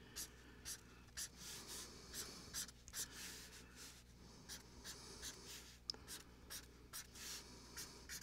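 Drawing on paper: quick, short scratchy strokes, about two or three a second, as lines are sketched one after another. Faint.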